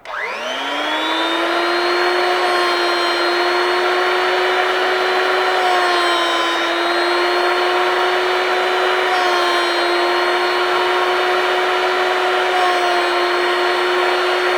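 Drill Doctor drill bit sharpener's electric motor switched on, spinning up within the first second to a steady whine as its grinding wheel works a small drill bit. The pitch dips slightly a few times as the bit is turned against the wheel.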